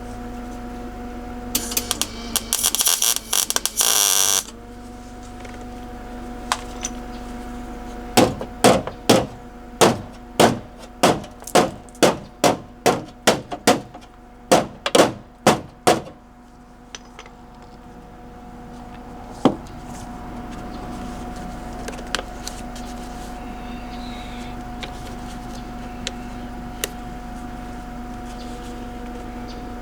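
A welding arc crackles in a short tack-weld burst of about three seconds, then a hammer strikes sheet metal about eighteen times, roughly two blows a second, with one more knock a few seconds later. A steady electrical hum runs underneath.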